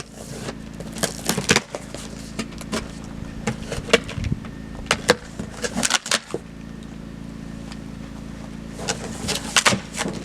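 A cardboard box and its plastic-wrapped contents being opened and handled: scattered sharp rustles, crinkles and knocks, thinning out for a couple of seconds past the middle. A generator runs with a steady hum underneath.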